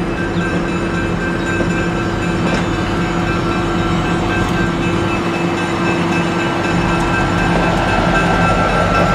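Streamlined stainless-steel passenger cars of the Nebraska Zephyr rolling slowly past as the train is shoved backwards by the diesel locomotive BN-1. A steady rumble of the rolling train with a constant hum, growing a little louder near the end.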